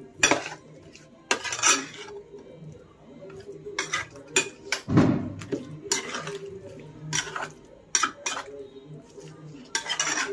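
Metal slotted spatula scraping and clinking against a steel mixing bowl as chicken is stirred through a thick yogurt marinade, in irregular strokes. There is one heavier dull thump about five seconds in.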